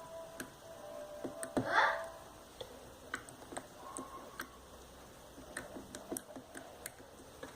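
Homemade slime being squeezed and worked by hand, giving irregular small clicks and pops, with one louder, longer squelch just before two seconds in.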